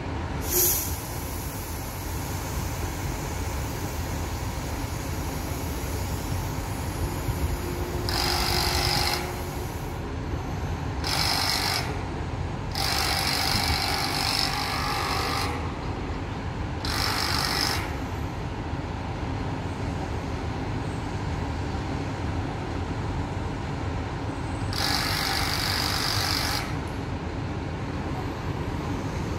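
A low, steady rumble as an electric multiple unit rolls slowly toward the platform. Five short bursts of hissing noise cut in over it, each one to three seconds long.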